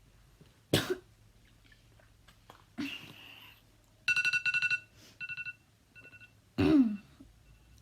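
A girl coughs sharply about a second in and again near the end. In between, an electronic alarm beeps in quick bursts of high tones.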